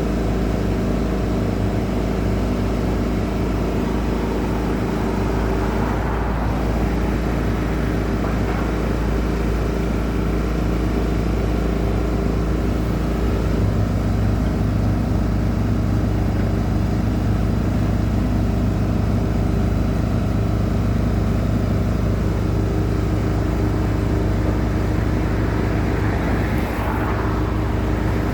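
An engine running steadily at an even speed over a heavy low rumble.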